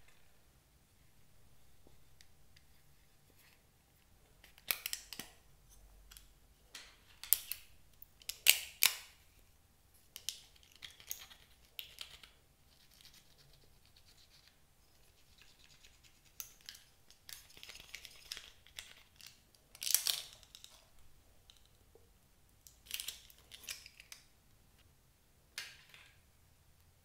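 A metal tool scraping and clicking against a plastic toy makeup palette as pressed eyeshadow is dug out, in short, irregular scrapes with pauses between them.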